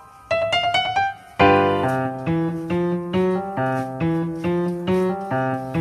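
Background music: a quick run of high piano-like notes, then about a second and a half in a fuller, louder part with bass notes comes in with an even beat.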